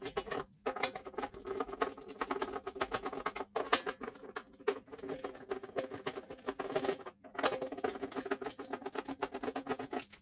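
Small handheld electric screwdriver running as it backs the screws out of a plastic compressor cover: a motor whir with fast rattling clicks, stopping briefly three times between screws.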